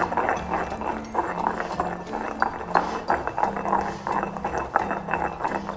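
Stone pestle grinding and knocking in a stone mortar, a quick irregular run of clicks and scrapes, as olive oil is worked in a little at a time to emulsify the garlic marinade.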